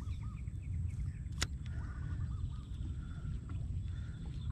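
Steady low outdoor rumble, like wind on the microphone, with faint bird chirps and a single sharp click about a second and a half in.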